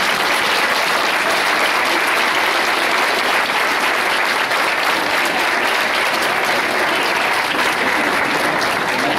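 Crowd applauding, a steady dense clapping that eases off near the end.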